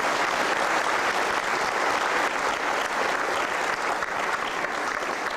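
Audience applauding in a steady round of clapping, congratulating a group of graduates.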